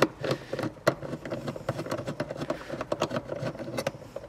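Small handheld electric screwdriver running a screw into the i3's metal floor support panel: a steady motor whir for a couple of seconds from about a second in, with scattered clicks and rattles of the bit on the screw.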